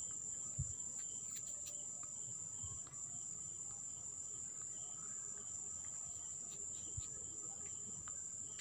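Faint, steady high-pitched trill of crickets in the background, with two soft low thumps, one about half a second in and one about seven seconds in.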